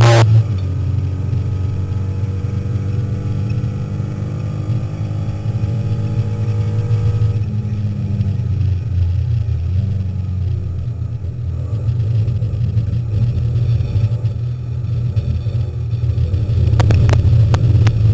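Alpine A310 race car's engine heard from inside the cabin at speed on track: a loud, steady drone that changes note about eight seconds in. A sharp crack comes right at the start, and a run of sharp knocks near the end.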